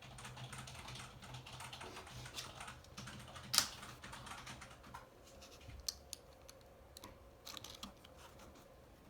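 Typing and clicking on a laptop keyboard: light, irregular keystrokes, with one sharper click about three and a half seconds in.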